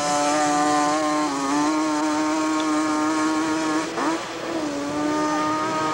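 Hillclimb ATV engine running hard at high, steady revs as the quad climbs a steep dirt slope. About four seconds in the note breaks and settles a little lower as the machine gets caught in soft dirt and loses momentum.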